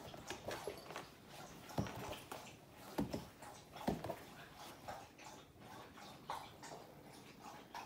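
Rustling and soft knocks of a hand playing over a fabric chair, with three sharper knocks about two, three and four seconds in.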